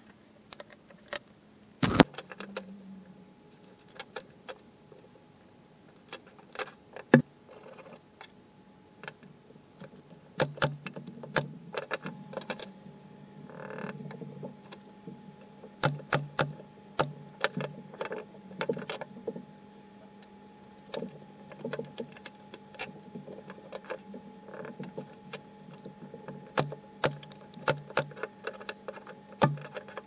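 Workshop handling sounds: a run of sharp, irregular clicks and knocks as wooden parts and hand tools are picked up, set down and fitted together, coming thicker from about halfway through, over a faint steady hum.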